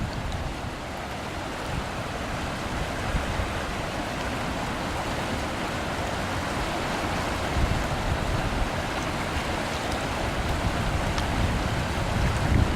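Flash-flood water rushing down a desert wash: a steady, churning rush of fast, muddy water, getting a little louder near the end.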